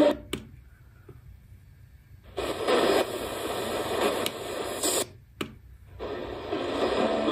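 Retekess V115 shortwave radio's speaker hissing with static and a weak, noisy signal while being tuned up through the 41-metre band. The sound mutes for about two seconds at the start and again for about a second around five seconds in as the frequency is stepped, with a click at each step.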